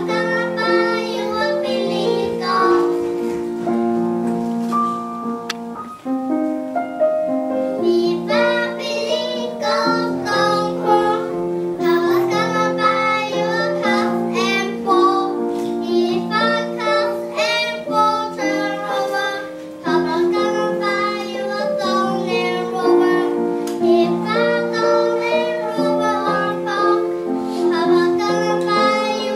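Group of children singing a song together to piano accompaniment.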